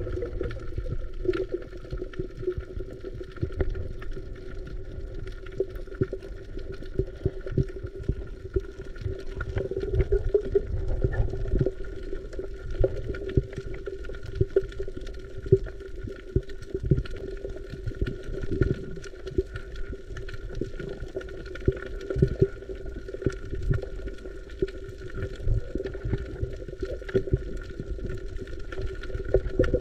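Water gurgling and sloshing, with a low rumble, a steady hum and many scattered small clicks.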